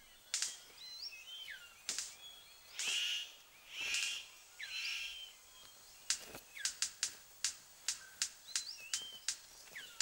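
Male superb bird-of-paradise giving several harsh calls with short upward glides. About six seconds in, these give way to a quick regular run of sharp clicks, about three a second, as it dances with its cape spread for a female.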